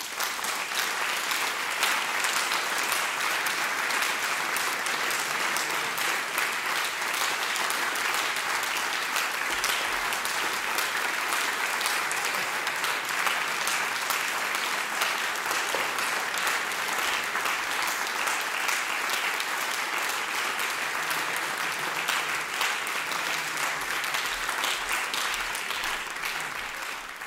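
Concert audience applauding steadily, a dense patter of many hands clapping, dying away near the end.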